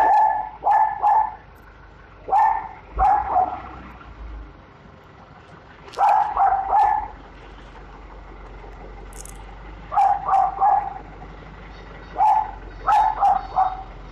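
A dog whining and yipping in short, pitched cries, mostly in runs of two or three, repeated about every two to three seconds.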